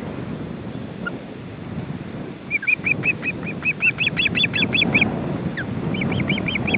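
Ospreys calling: a rapid series of short, high chirping notes, about six a second, starting a couple of seconds in and growing louder, breaking off briefly and starting again near the end. Wind rumbles on the microphone throughout.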